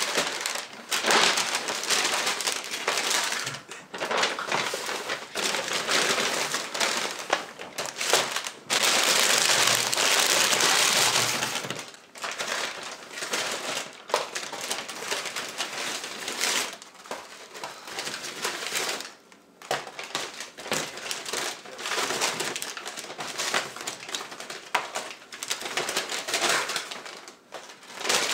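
Paper takeout bags rustling and crinkling as they are unpacked, with short knocks as cardboard nugget boxes and plastic sauce cups are set down on a wooden table. A steadier, louder stretch of rustling comes about a third of the way in.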